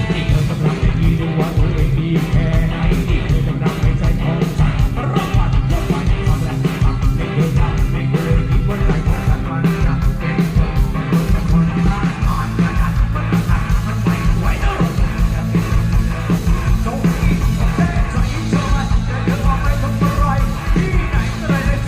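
Live Thai ramwong band playing loud amplified music, with a fast, steady drum beat over a heavy bass line.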